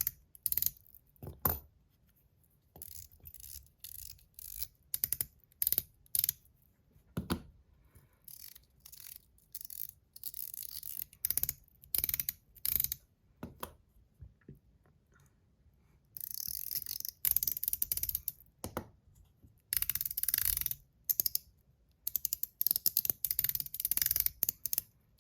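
Several Top C metal fidget clickers clicked one after another for a sound comparison: sharp, crisp metal clicks, some singly and some in quick runs, in groups separated by short pauses.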